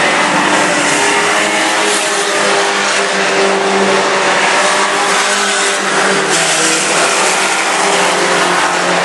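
Engines of a pack of mini pickup trucks racing, several running hard at once. The sound is loud and steady, with overlapping engine notes.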